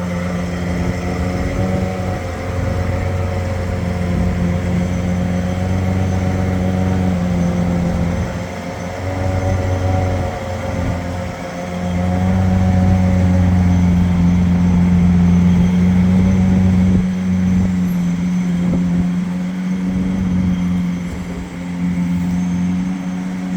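Lamborghini Aventador's V12 engine running steadily at low revs, as at idle, its note dipping briefly a few times.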